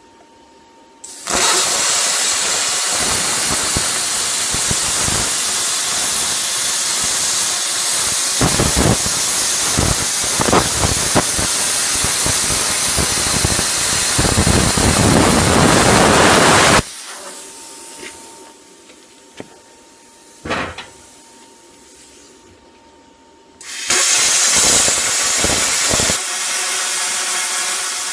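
Handheld plasma cutter cutting steel angle iron: a loud, steady hiss of the arc and air for about fifteen seconds, then a pause with a sharp click, then a second, shorter cut near the end.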